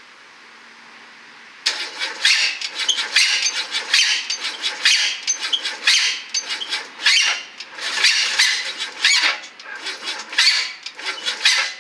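Starter cranking the Renault Clio's 1.2 L engine, a rough, harsh pulsing of about three beats a second that starts about two seconds in and stops abruptly near the end without the engine catching. The engine has been run dry of oil and coolant until it failed.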